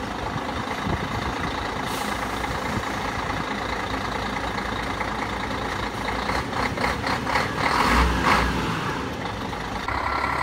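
MAN fire engine's diesel engine running at idle. A quick, rhythmic clatter comes in about six seconds in, and a heavier low rumble surges about eight seconds in.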